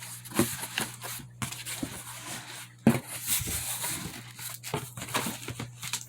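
Packaging being handled and opened: irregular rustling and tearing with short clicks and scrapes, and a sharper knock about three seconds in.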